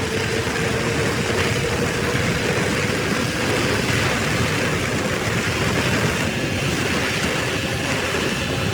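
A vehicle on the move: a steady rush of road and running noise with a faint steady hum underneath.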